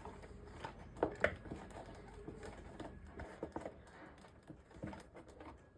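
Faint scattered clicks and rustles of hands handling a mountain bike tire and rim, with a couple of sharper ticks about a second in.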